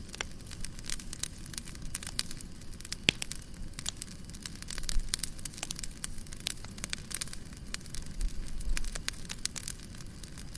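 Wood fire crackling in a fireplace: irregular sharp pops and snaps over a low steady rumble.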